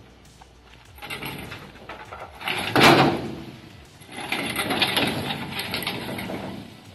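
Pittsburgh engine hoist with a 1985 Chevrolet C10 pickup bed hanging from it, rolled back across gravel as the bed is pulled off the frame: metal rattling and scraping, one loud clunk near three seconds in, then a steady stretch of rattling and rolling.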